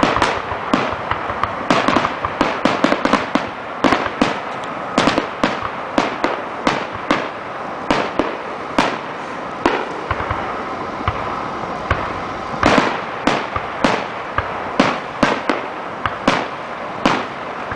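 Fireworks grand finale: a rapid, unbroken barrage of aerial shell bursts, several bangs a second.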